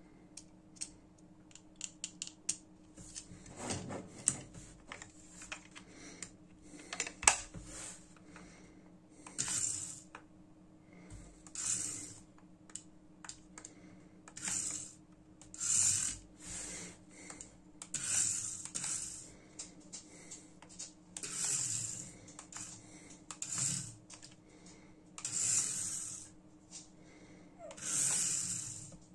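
Tiny electric motor and gears of a 1:67-scale mini RC car whirring in short high-pitched bursts of about a second, roughly a dozen times, as it drives in spurts. Scattered small clicks and knocks come before the first burst.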